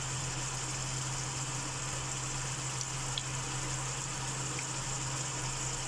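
Pork binagoongan simmering in oily sauce in a wok: a steady sizzling hiss with a few faint ticks, over a constant low hum.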